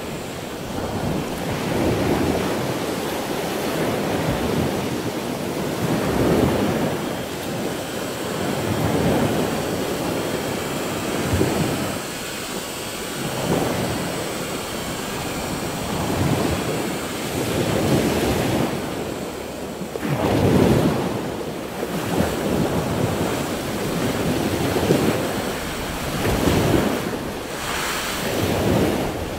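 Storm surf rushing up and washing against a seawall. The noise swells and falls every couple of seconds, with stronger surges late on.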